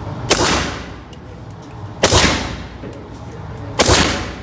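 Gunshots: three evenly spaced shots about a second and three-quarters apart, each followed by a short echoing tail.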